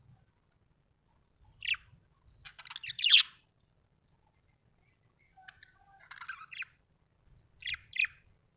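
Budgerigar chirping in short bursts: a single chirp, then a loud run of rapid chatter about three seconds in, softer chatter around six seconds, and two quick chirps near the end.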